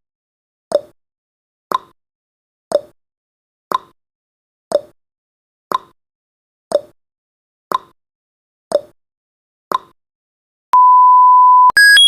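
Countdown timer sound effect: a tick once a second through the final seconds, then a steady one-second beep as the count reaches zero, followed near the end by a higher electronic alarm of quickly changing tones.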